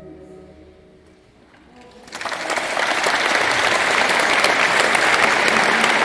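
The orchestra's final chord fades away into the church's echo, then about two seconds in the audience breaks into loud, sustained applause.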